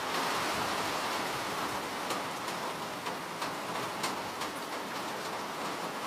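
Steady rain hiss with individual raindrops ticking sharply on a surface, a few distinct drops a second.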